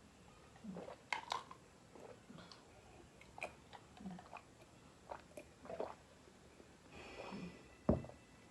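Close-miked mukbang eating sounds: irregular chewing and biting, a short mouth sound every half second or so. A louder thump comes near the end.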